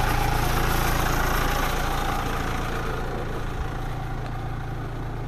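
A vehicle engine idling steadily, its low hum easing slightly quieter toward the end.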